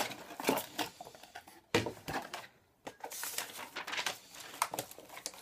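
A cardboard box and its cardboard insert being pulled apart and handled: irregular rustling and scraping with sharp clicks, and a short pause about halfway through.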